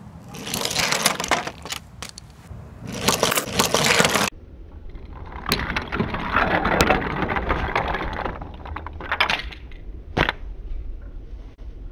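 Wooden toy trains rolling and clattering along wooden track, a rattling scrape in several bursts with sharp clicks. The sound cuts off abruptly about four seconds in and resumes, then thins to a few separate clicks near the end.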